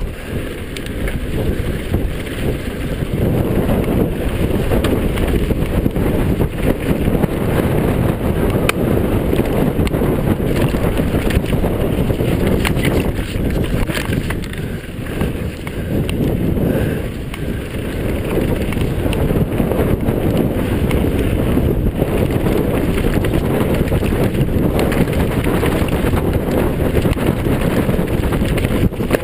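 Wind buffeting the microphone of a camera on a mountain bike descending a rough, rocky dirt trail. There is a loud, low, dense noise, with scattered sharp knocks and rattles from the tyres and bike going over stones.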